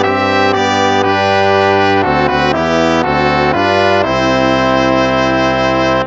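Instrumental hymn played in full held chords, moving note by note through a phrase and ending on a long sustained chord that fades out at the end of the phrase.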